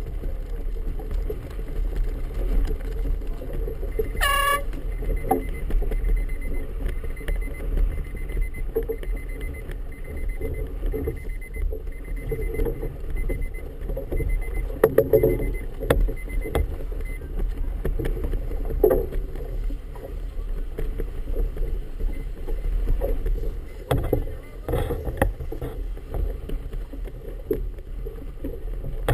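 Choppy harbour water sloshing and slapping around a boat's hull under a steady low rumble, as J/24 sailboats pass close by. About four seconds in, a brief shrill tone sounds.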